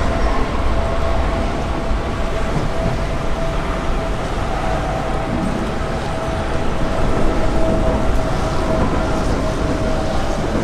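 Steady, loud rumble of a vehicle in motion, with a constant hum riding over it.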